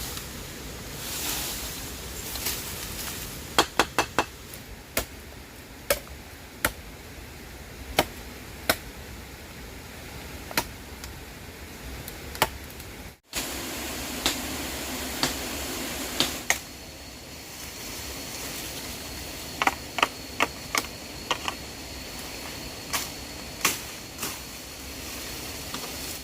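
Sharp knocks at irregular intervals, some in quick runs of three or four, over a steady background hiss.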